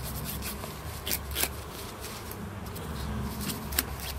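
Fine sandpaper rubbed on a small corroded metal battery contact, a faint scratchy rubbing with a few sharper scrapes, to remove the corrosion left in the surface. A low steady hum runs underneath.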